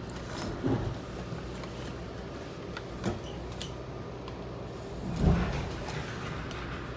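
Inside a Metra commuter rail car: a steady low hum with three short, dull thumps, about a second, three seconds and five seconds in, the last the loudest.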